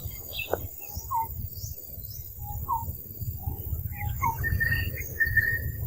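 Birds chirping in a series of short, separate notes, with a longer held note near the end, over a low steady rumble.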